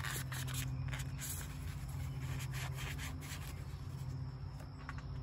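A rag rubbing and wiping a part clean: a few short scuffs in the first second and a half, fainter ones later, over a steady low hum.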